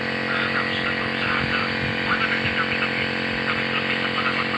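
A steady machine hum, with indistinct voices talking over it at times.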